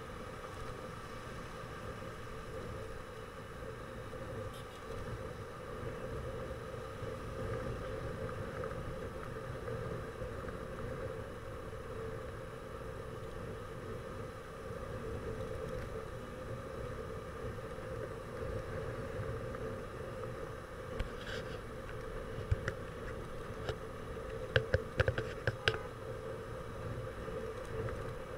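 Steady drone of a vehicle driving, engine hum and road noise heard from on board, with a handful of short sharp clicks or knocks about three-quarters of the way through.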